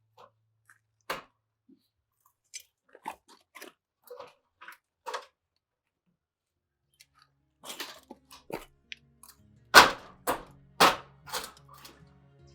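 Irregular short crunches and clicks, scattered and sparse at first, then a louder cluster of sharp crunches near the end. Quiet music fades in under them.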